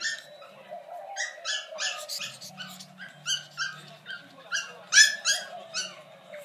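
Brussels Griffon puppy yapping: a run of short, high-pitched yips, several a second, with brief pauses between the bursts.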